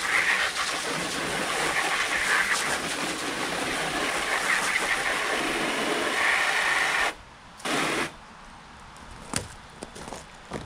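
Garden hose spraying water into a black plastic mixing tub, a steady hiss and splash. It cuts off about seven seconds in, then gives one short spurt about half a second later.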